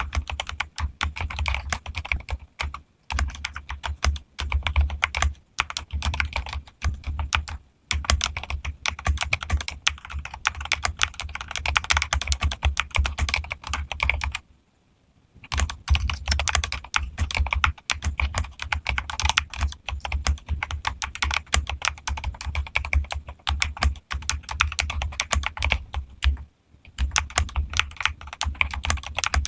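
Fast continuous typing on a modified mechanical keyboard: rapid keystroke clicks, each with a deep low thud. The typing pauses for about a second near the middle.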